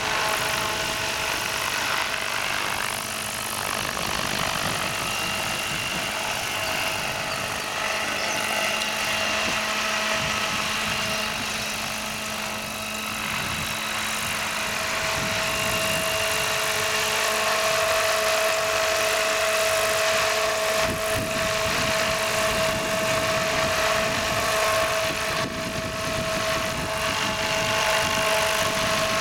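F3C-class radio-controlled model helicopter hovering and flying low: a steady high whine from its drive and spinning rotors, a little louder in the second half.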